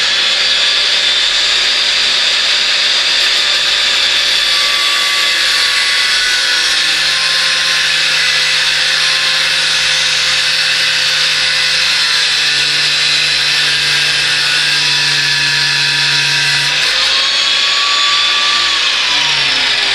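Power grinder's abrasive wheel running steadily with a whine and grinding the cutting lip of an 18 mm twist drill bit, sharpening it. The grinding of the steel bit throws sparks partway through.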